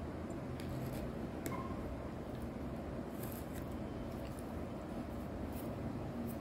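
Pen scratching on paper while a house is drawn, a few faint short strokes and ticks, over a steady low background hum.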